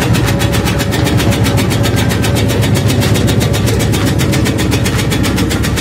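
Homemade tobacco-shredding (rajang) machine, driven by a ½ hp electric motor, running steadily while it slices tobacco leaves. It makes a rapid, even chopping rhythm over a steady hum.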